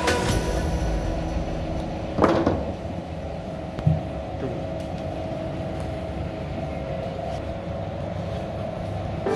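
Steady indoor room hum, broken by a sharp knock that rings briefly about two seconds in and a short dull thump near four seconds.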